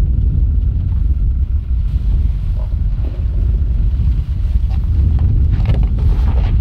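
Heavy low rumble of a Toyota Hilux pickup driving slowly over rough, snowy off-road ground, with a few sharp crackles near the end.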